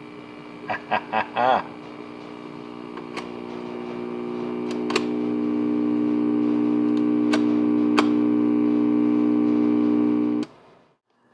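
Steady electrical hum from the Symphonic suitcase record player's amplifier and speaker. It swells over a few seconds, then holds steady and cuts off suddenly near the end, with a few sharp clicks over it.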